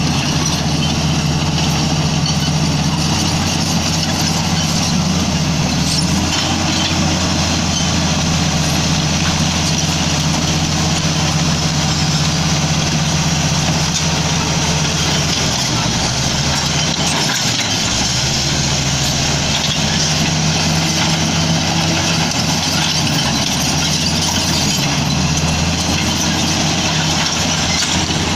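Diesel engine of a Komatsu D85E-SS crawler bulldozer running steadily at work; its note dips briefly about two-thirds of the way through, then picks back up.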